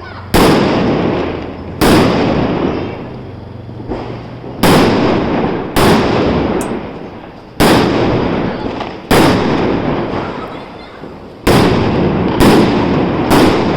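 Diwali firecrackers going off: about nine loud bangs at uneven gaps of one to three seconds, each followed by a long echoing rumble that dies away.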